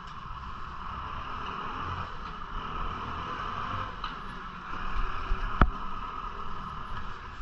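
Steady road and wind noise of a bicycle riding through city traffic, as picked up by a camera mounted on the rider or bike, with low vehicle rumble underneath. A single sharp knock comes about five and a half seconds in.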